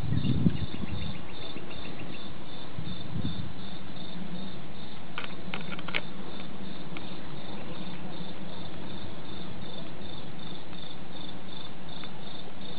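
Crickets chirping in the dark, a steady high-pitched pulsing at about four chirps a second. A low rumble fades away in the first second.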